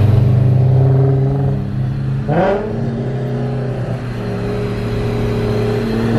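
Two cars running hard side by side at speed, their engines and exhausts at steady high revs. A brief rising sweep comes about two seconds in.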